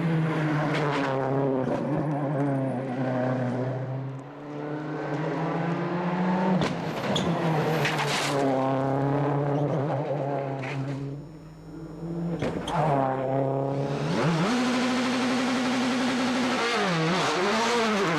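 Rally car engine at full stage pace, revs climbing and dropping through repeated gear changes. The engine lifts off briefly about four seconds in and almost cuts out for a moment near the middle, and there are quick rev dips and recoveries near the end.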